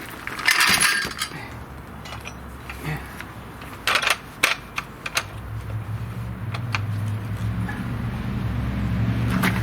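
Steel pipe clinking and knocking as it is handled and set up for cutting, a few sharp metal knocks in the first half. About five seconds in a steady low hum sets in and slowly grows louder.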